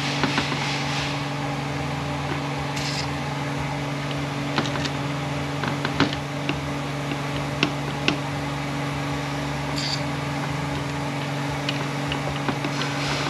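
Short hisses from an aerosol can of cutting oil sprayed into a valve-body bore through a reaming jig: once at the start, again about three seconds in and near ten seconds. Between them come light metallic clicks of the reamer and jig plate, over a steady low hum.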